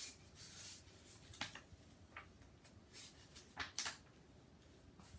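Faint rustle of a picture book's paper pages being turned and handled, with a few soft clicks and knocks. The sharpest comes a little under four seconds in.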